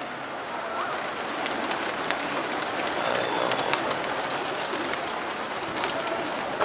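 Flock of domestic pigeons flying close overhead: a dense flutter of many wingbeats with scattered sharp claps.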